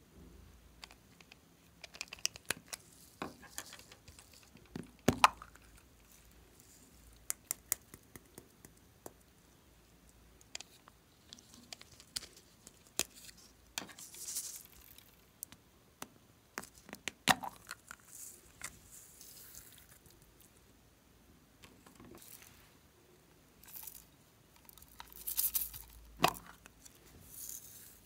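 Handling of a plastic toy capsule ball: scattered sharp clicks and taps as it is handled and opened, with brief rustling hisses about halfway through and near the end as foam beads and glitter are shaken out onto slime.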